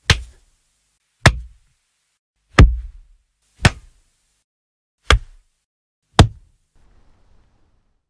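Six sharp kung fu hit foley impacts, about one a second, each a hard crack with a low thud that dies away quickly.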